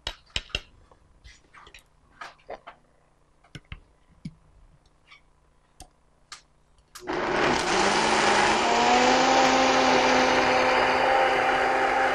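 A few light clicks and knocks, then about seven seconds in a high-speed countertop blender starts abruptly and runs steadily. Its hum rises slightly as it comes up to speed. It is blending rice milk, brown rice, cashews and baked sweet potato into a thick latte.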